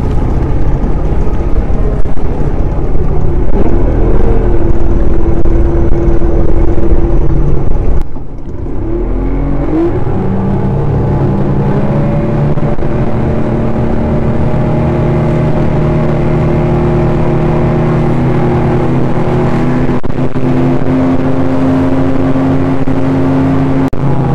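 Passenger speedboat's outboard motor running under way, with heavy wind rumble for the first eight seconds. About eight seconds in the sound drops, the engine note climbs, and it settles into a steady cruising drone.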